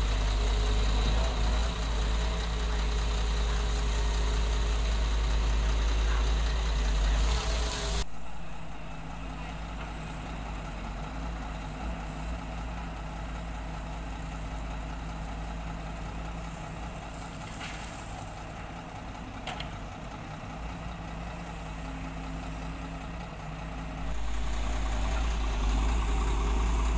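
Diesel engine of a Doosan DX140W wheeled excavator running steadily. It is loud at first, drops sharply about eight seconds in and stays lower until near the end, when it picks up again.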